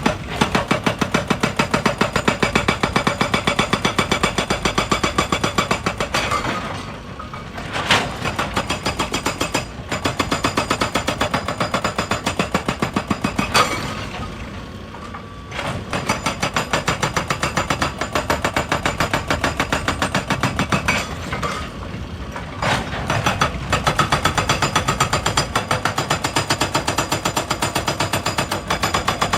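Hydraulic rock breaker on an excavator hammering rock in rapid, even blows over the running engine. The hammering stops briefly three times, about a quarter, half and three-quarters of the way through.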